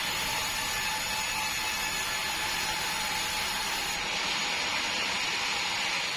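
Sawmill machinery running steadily: a constant mechanical hiss and whine with a faint steady tone through it.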